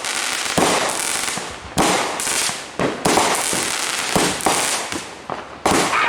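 Consumer fireworks going off in quick succession: about eight sharp bangs in six seconds, at uneven intervals, each fading out over a fraction of a second.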